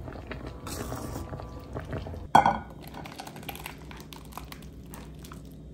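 A metal spoon stirring thick soup in a nonstick frying pan, with light scrapes and small clicks. About two seconds in comes a single sharp, ringing clink, then thick soup is poured from the pan into a ceramic bowl with soft wet splats and small clicks.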